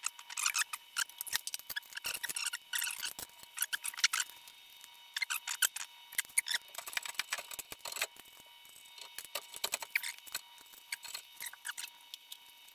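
Irregular light metallic clinks, ticks and scrapes of small exhaust-clamp hardware and hand tools being picked up, handled and set down on a concrete floor.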